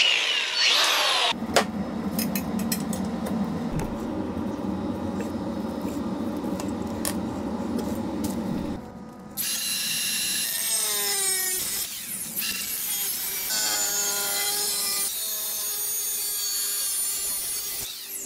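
Power tool cutting metal: a steady sawing sound for several seconds, then a higher, harsher stretch with whines that fall in pitch.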